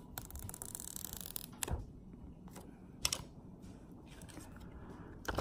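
Clear plastic protective film being peeled off a new iPhone XS Max, a faint hiss of film coming away, with three light clicks of the phone being handled.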